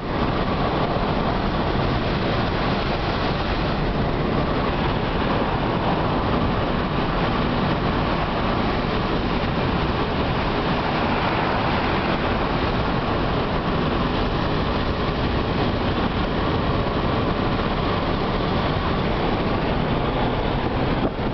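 Steady road noise of a moving car heard from inside the cabin: tyre rumble and engine at cruising speed, with no changes.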